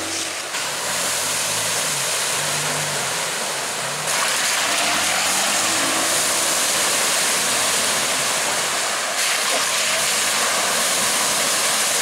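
Off-road truck driving on a dirt trail: a heavy wash of wind and road noise over a low engine note that rises and falls. The level jumps suddenly about four seconds in and again about nine seconds in.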